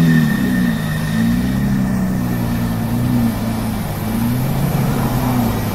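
Lamborghini supercar's engine running with a deep note that keeps rising and falling in pitch, as with light blips of the throttle while it rolls slowly.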